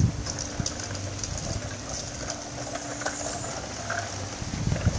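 Small child's bicycle with plastic training wheels rolling along a concrete path: a steady rolling rumble and drone with scattered light clicks and rattles.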